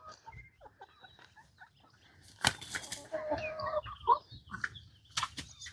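Backyard hens clucking softly on their roost, with sharp rustling or flapping sounds about two and a half seconds in and again near the end.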